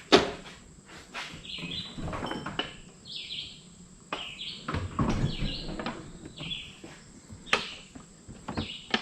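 Tools and metal parts clinking and knocking in irregular handling sounds, with a sharp knock just after the start, while birds chirp in the background.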